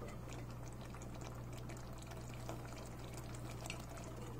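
Thick simmering curry being stirred with a spoon in a ceramic casserole dish: faint, scattered soft scrapes and ticks over a low steady hum.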